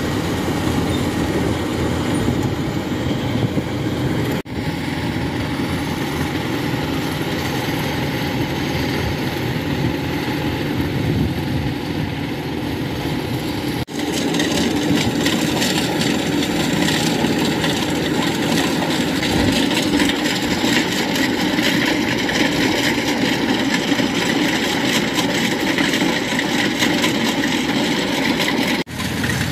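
Rice combine harvester running steadily as it cuts and threshes rice in a wet paddy, its engine and machinery making an even drone. The sound drops out for an instant three times: about four seconds in, about fourteen seconds in, and near the end.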